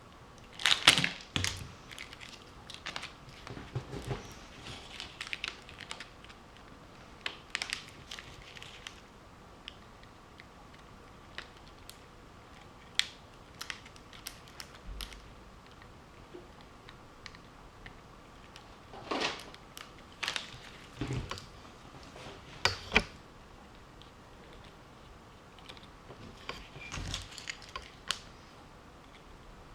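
Irregular small clicks and taps, as of tools and small parts being handled on a workbench, in scattered clusters with pauses between them.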